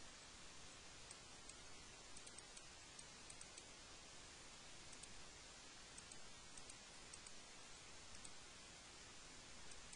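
Near silence: a steady faint hiss with scattered faint computer mouse clicks.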